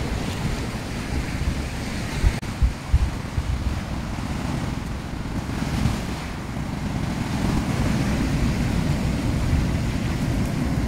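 Surf washing onto the shore, with wind buffeting the microphone and a few low thumps about two to three seconds in.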